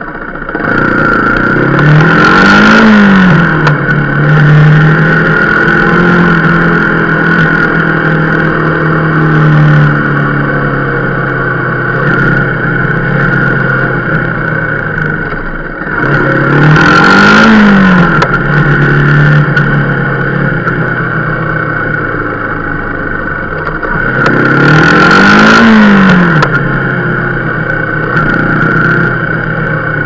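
A motorcycle engine running in slow traffic. It revs up and eases off three times, a few seconds in, just past halfway, and about five seconds before the end, and runs steadier between.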